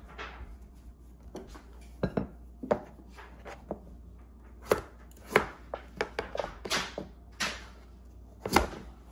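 Kitchen knife chopping through pumpkin and striking a plastic cutting board: a dozen or so irregular chops, the loudest about halfway through and near the end.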